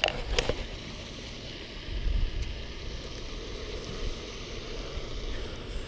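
Wind buffeting the microphone of a chest-mounted action camera: a low, gusty rumble that swells about two seconds in. A couple of sharp clicks come right at the start.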